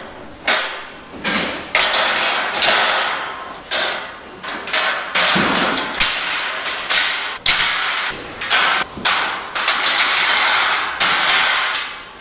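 Steel pallet rack beams being laid one on another on a stack, metal clanking on metal in a string of sharp clanks about one a second, each ringing briefly.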